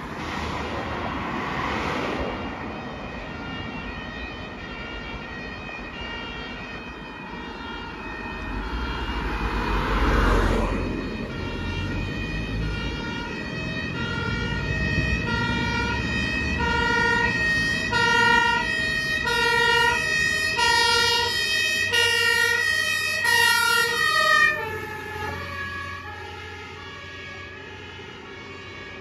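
Two-tone German fire-engine siren (Martinshorn) on a TLF 16/25 fire engine running on an emergency call. The siren alternates steadily between two pitches, growing louder as the engine approaches. It is loudest in the second half, then drops suddenly in level and pitch a few seconds before the end as the truck passes and drives away. Passing cars whoosh by near the start and about ten seconds in.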